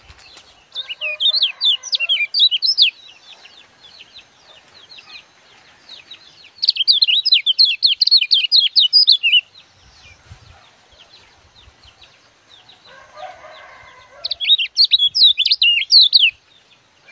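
Kecial kuning, a yellow white-eye, singing in three bursts of rapid, high chirping notes, each lasting about two to three seconds, with faint scattered chirps in between.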